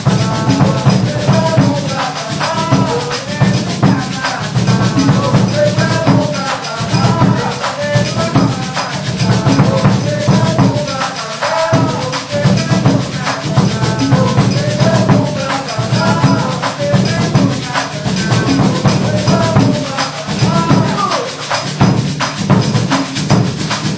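Coco, the northeastern Brazilian music and dance form, played on hand percussion including a pandeiro, with a fast steady rhythm over a low drum. A voice sings a melody line over it.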